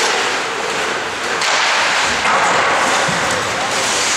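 Ice hockey game sounds on an indoor rink: skate blades scraping the ice, with a few knocks from sticks and puck, and players' voices in the background.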